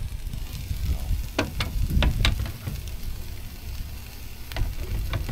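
Egg-washed Monte Cristo sandwiches frying on a Blackstone flat-top griddle: a steady sizzle over a low rumble. A few sharp clicks come in a cluster between about one and two and a half seconds in, and a couple more near the end.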